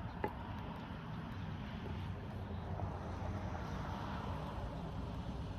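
Cars driving past on the road, a steady noise that swells toward the middle and eases off.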